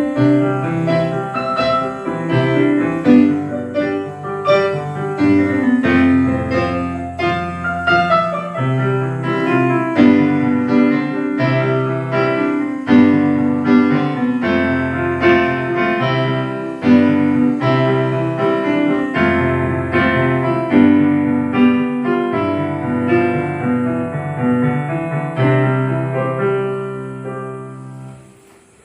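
Casio CT-X9000IN electronic keyboard playing a piano-voiced piece: steady chords over a bass line in a regular rhythm, fading out near the end.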